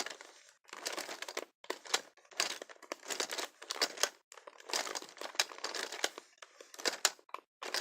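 Hard plastic toy parts of a Geo Trax bull ride accessory clicking and rattling in irregular clusters as it is turned by hand.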